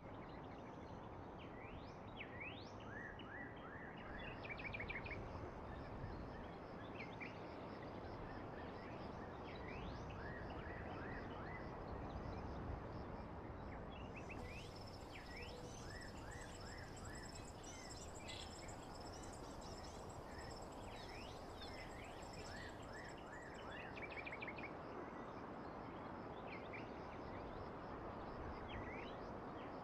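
Birds chirping repeatedly, short quick calls, over a steady background hiss, with a faint thin high tone in the middle stretch.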